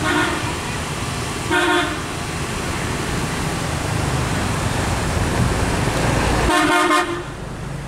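A horn sounds three short toots, one at the start, one about a second and a half in, and a slightly longer one near the end, over the steady low rumble of a tugboat's engine pulling a loaded barge.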